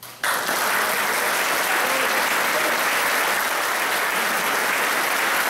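Audience applauding: the clapping breaks out all at once just after the start and keeps up steadily.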